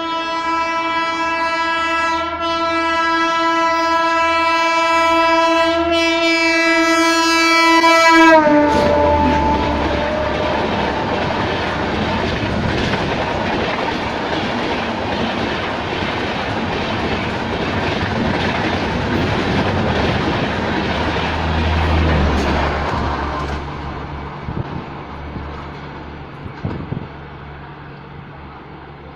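Horn of the Bhubaneswar Rajdhani Express locomotive sounding one long chord as the train approaches at about 130 km/h. About eight seconds in, the pitch drops as the locomotive passes, and the horn stops. The coaches then rush past with a loud roar and wheel clatter for about fifteen seconds, fading away near the end.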